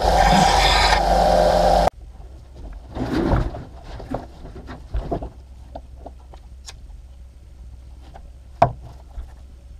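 A bench belt sander running loudly while a small metal part is ground on its belt, cut off abruptly about two seconds in. Then scattered light clicks and knocks as a camera quick-release plate and a small metal mount are handled on a workbench, with one sharp click near the end.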